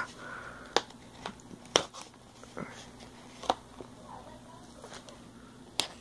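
Handling of a metal steelbook disc case: several sharp clicks and taps spaced irregularly as it is gripped and turned over, with faint rustling between.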